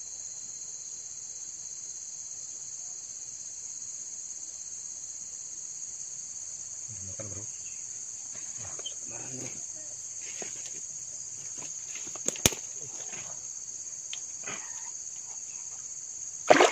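Steady, high-pitched drone of an insect chorus. Faint rustles come and go from about halfway, with one sharp click, and just before the end a sudden loud noise breaks in as the fishing rod is snatched up.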